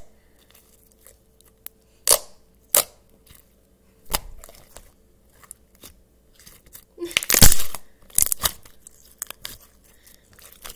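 Thick, glossy pure-glue slime being pressed and folded by hand, giving sharp wet pops and clicks as its air pockets are squeezed. A few single pops are spaced apart, then a denser run of loud crackling comes about seven seconds in.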